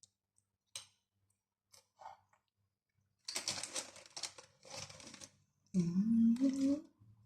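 Close-up crunching and chewing of a crispy fried-chicken Zinger burger being bitten into and eaten, after a few faint clicks. Partway through comes a loud, rising hummed "mmm".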